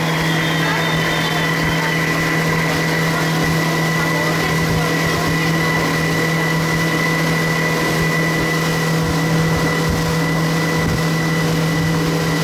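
Motorboat engine running at a steady, unchanging pitch while the boat travels at speed, with water rushing along the hull.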